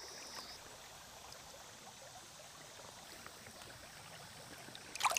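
Shallow creek water running faintly and steadily, with a brief sharp sound about five seconds in.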